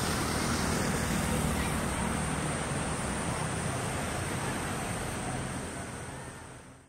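Steady outdoor street ambience with a rushing noise of road traffic, fading out over the last second or so.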